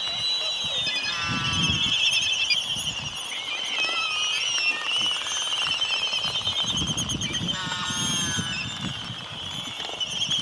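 Several birds calling and chirping over a steady high-pitched trill, with runs of quick stepped chirps about a second in and again about eight seconds in.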